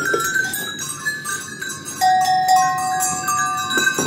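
Metal sheep and goat bells on collars being handled and shaken, several bells ringing and clanking at once with overlapping tones. About halfway through one bell rings out with a clear, held note.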